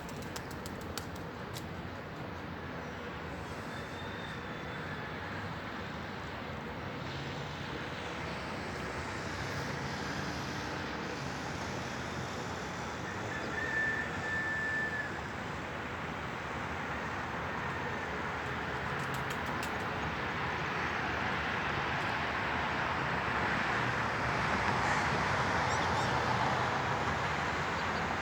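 Steady outdoor background noise, like distant traffic, that swells louder over the second half, with a few brief faint bird chirps.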